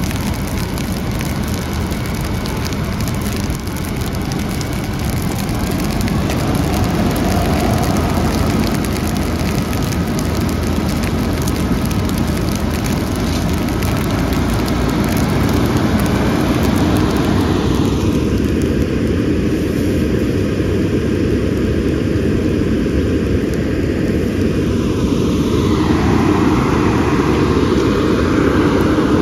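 Steady loud rumble of a fire engine running its pump, mixed with the hiss of a hose stream spraying water onto burning brush. About two-thirds of the way through, some of the higher hiss thins out while the low rumble carries on.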